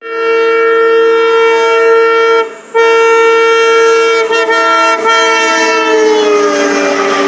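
Railway locomotive air horn sounding a long, loud blast, cut off briefly about two and a half seconds in and then held again, its pitch sliding down near the end as the approaching locomotive passes. The rumble of the train's wheels builds underneath toward the end.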